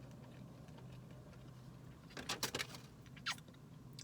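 Quiet eating sounds: a few short crinkles and clicks about two seconds in and once more a little later, from fast food and its wrapper being handled and eaten. A faint steady low hum lies underneath.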